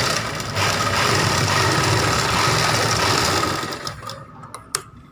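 River umbrella sewing machine running steadily, stitching a test seam through a strip of denim just after its upper thread and bobbin have been set. It stops about three and a half seconds in, and a light click or two follow near the end.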